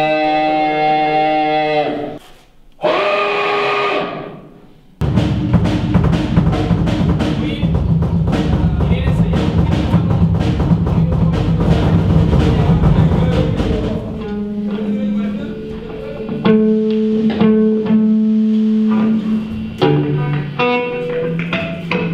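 Rock band playing live: a held, ringing electric guitar chord cuts off twice in the first few seconds, then drums and distorted guitars come in loud about five seconds in. After about fourteen seconds it thins out to separate guitar and bass notes over the drums.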